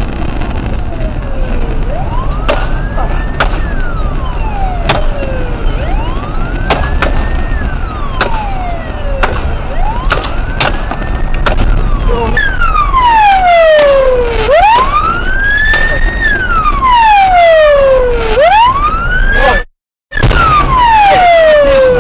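Police car siren wailing in a slow rise and fall, one sweep every three to four seconds, heard over the low rumble of the car driving at highway speed. The siren becomes louder and clearer about halfway through, there are sharp clicks now and then, and the sound drops out for a moment near the end.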